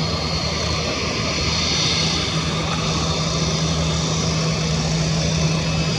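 Airbus A320's twin jet engines at low taxi thrust as the airliner taxis and turns toward the runway: a steady low hum under an even jet hiss.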